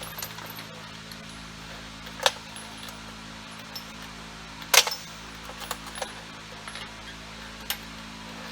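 Two sharp metallic clacks about two and a half seconds apart, with a few lighter clinks, as the lug nuts are handled while the wheel is put back on, over a steady low hum.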